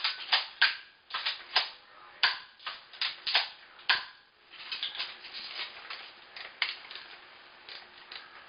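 Sharp plastic clicks and clacks, about a dozen at uneven spacing, from an airsoft shotgun being handled and worked by its homemade add-on handle.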